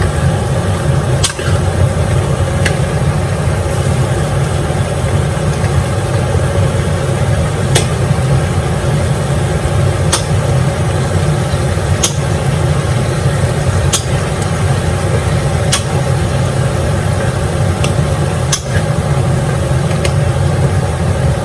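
A steady low rumble throughout, with a sharp click every couple of seconds as a ladle scoops the chicken's own cooking liquid out of the pot.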